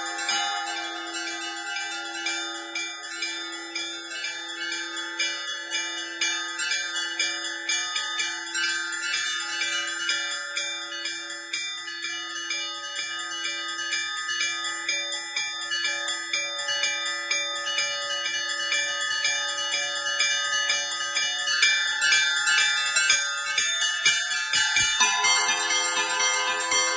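Russian Orthodox church bells in a continuous peal: one mid-pitched bell struck at a steady, regular pace beneath rapid, busy strikes of small high bells. About 25 seconds in, the pattern changes and deeper bell tones come in.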